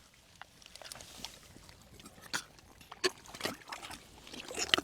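Hands working in wet pond mud and shallow water: irregular squelches, wet clicks and small sloshes, getting busier near the end.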